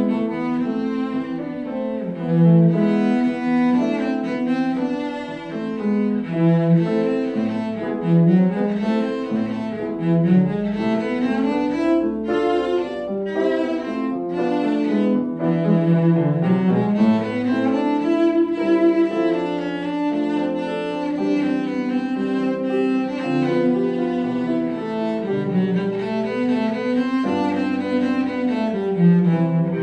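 Cello and grand piano playing a classical piece: the cello is bowed in continuous running passages that climb and fall, over piano accompaniment.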